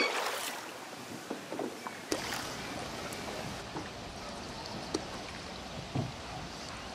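Canoe paddles dipping into water with light splashing and trickling, over a steady wash of water noise, with a few sharp knocks and a low thump near the end.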